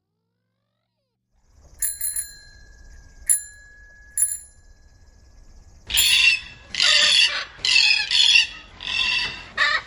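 Four sharp bell-like dings, then a parrot giving a run of five or six loud, harsh squawks.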